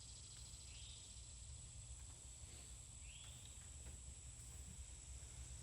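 Near silence: a faint, steady high-pitched insect drone, with a couple of faint short rising bird chirps.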